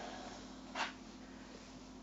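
Quiet room tone with a steady low hum, and one brief soft swish a little under a second in.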